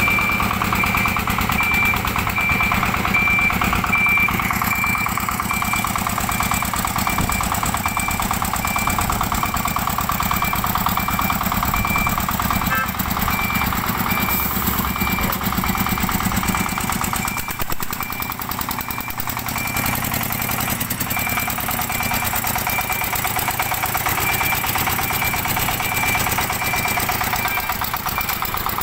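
Single-cylinder diesel engine of a hand-tractor-powered cargo truck running and pulling the vehicle, a fast, even chugging knock. A high beep repeats steadily through much of it.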